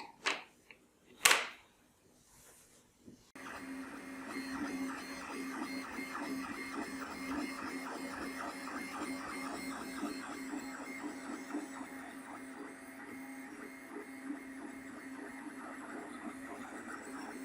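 A 3D printer printing: stepper motors whirring with a steady hum and rapid ticking, starting abruptly about three seconds in after a few sharp clicks.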